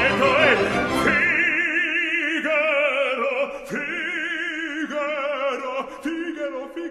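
Operatic music: an orchestra with a singer holding notes with a wide vibrato.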